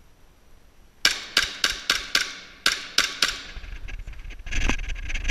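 Airsoft pistol firing about eight sharp, echoing shots in quick succession, starting about a second in, with a short pause midway. Softer scuffling and rustling follows near the end.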